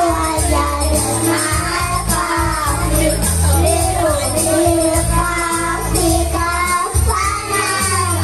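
A child singing a devotional song over musical accompaniment with sustained bass notes and jingling percussion.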